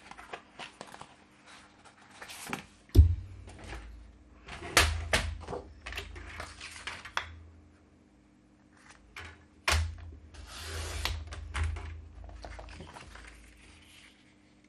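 A sheet of cardstock is handled and slid into position on a paper trimmer, with rustling and sliding between sharp knocks and thuds as the trimmer and paper are set down on the table. The loudest knock comes about three seconds in, with others near five and ten seconds.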